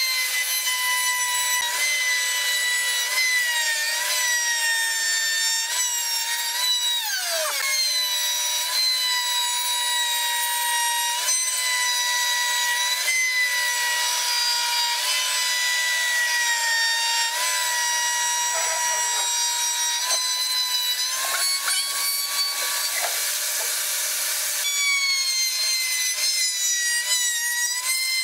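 Table-mounted router whining at high speed as it cuts a profile into a pine panel fed by hand. Its pitch sags and recovers as the cut loads the motor, dropping steeply for a moment about seven seconds in before picking back up.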